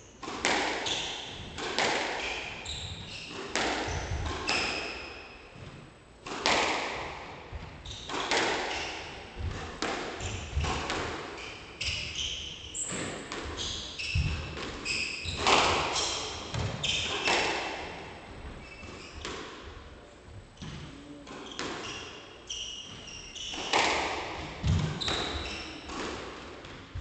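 A squash rally: the ball cracks off rackets and smacks against the walls in a glass-backed court, striking about once a second and echoing. Between shots, shoes squeak on the wooden floor.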